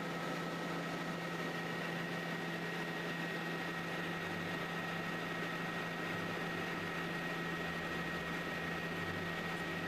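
Helicopter cabin noise heard from inside in flight: a steady drone of engine and rotor over a hiss of rushing air, with a thin, steady high whine.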